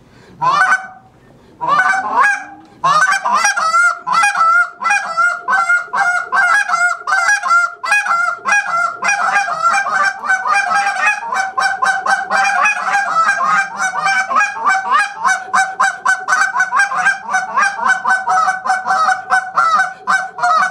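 Hand-held goose call blown in a calling-contest routine. It opens with a few separate honks, then from about three seconds in runs into an unbroken string of rapid clucks, each jumping between a low and a high pitch. The clucks get faster from about halfway through.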